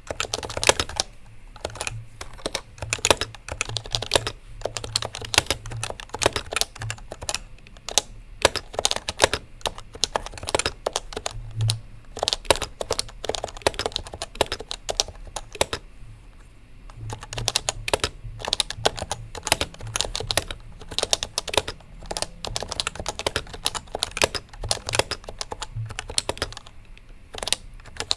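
Typing on a Happy Hacking Keyboard (HHKB) with Topre switches: a fast, irregular run of key presses, with a short pause a little past halfway before the typing resumes.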